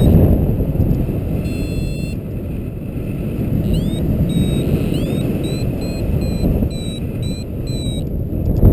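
Airflow buffeting the microphone during paraglider flight, a steady rumbling rush. Over it, a paragliding variometer beeps on and off in short high tones, some rising in pitch, with quick runs of beeps near the start and near the end.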